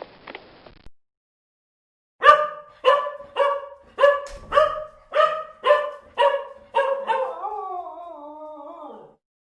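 A dog barking about ten times in a quick, even series, roughly two barks a second, then one long wavering howl that falls away near the end.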